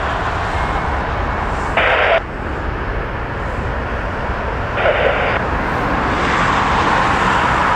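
Jet airliner's engines running on the runway with a steady rumble, a whine building and growing louder from about six seconds in as the aircraft rolls for takeoff. Two short hissy bursts of radio static from an airband scanner, about two and five seconds in.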